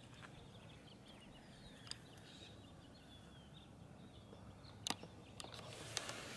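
Faint outdoor background with small birds chirping now and then in short high notes, some sliding down in pitch. A few sharp clicks, the loudest about five seconds in.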